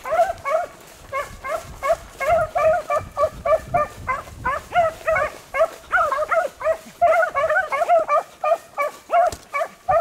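Beagles baying as they run a rabbit's scent trail, short pitched barks coming several times a second and overlapping from more than one dog.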